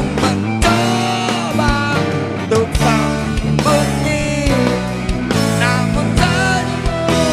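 Live rock band playing an instrumental passage between sung lines: drums, bass and guitars, including acoustic guitar, with a bending lead melody line over the top.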